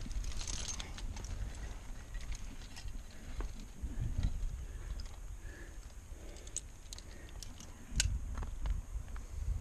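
Wind rumbling on the camera microphone, with scattered light clicks and scrapes of a climber's gear, hands and shoes on rock; one sharp click about eight seconds in.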